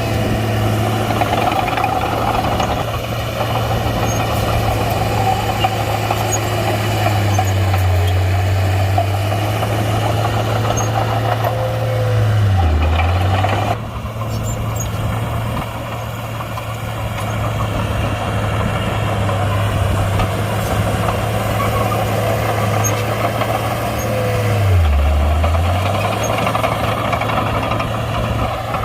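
Komatsu D31-P crawler bulldozer's diesel engine running steadily, its note dipping briefly twice and then recovering.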